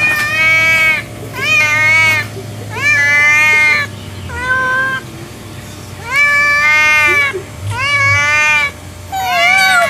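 Orange tabby cat meowing over and over: about seven loud meows, each under a second long, coming roughly a second apart.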